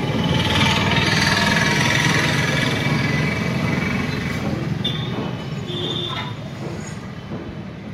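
Street traffic: a rattling vehicle engine passing close by, loudest in the first few seconds and then fading away, with two short high beeps about five and six seconds in.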